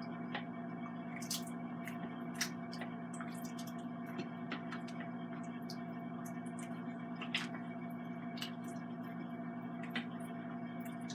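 A spoon stirring thick chili in the stainless steel inner pot of a 3-quart Instant Pot Duo Mini on the sauté setting: soft squelching with many scattered small clicks and pops. A steady low hum runs underneath.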